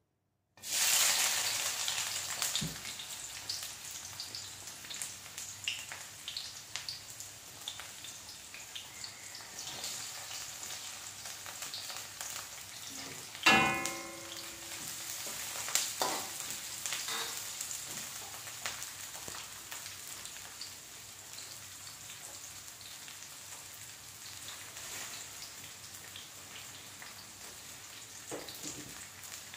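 Chopped onions hit hot oil in a metal wok and sizzle loudly at once, then settle into a steady frying sizzle with small scrapes and clicks of a metal ladle stirring. About halfway through, the ladle strikes the wok once with a ringing metal clang.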